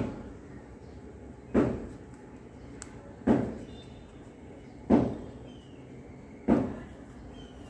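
Dough being punched down by hand in a glass bowl to knock out air bubbles: five dull thumps, evenly spaced about a second and a half apart, each dying away quickly.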